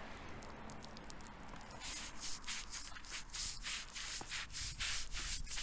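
Stiff deck brush scrubbing wet concrete paving stones to get chalk off, in quick back-and-forth scratchy strokes, about three a second, starting about two seconds in.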